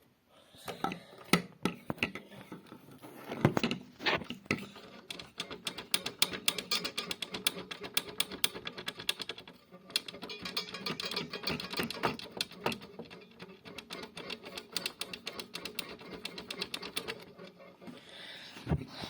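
Small toy washing machine running with its motor humming steadily under a fast, dense clicking and rattling.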